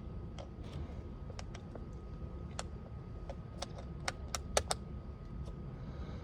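Irregular light metallic clicks and taps of a hand tool working at the screws that hold a steering wheel airbag, several in quick succession about four seconds in, over a steady low hum.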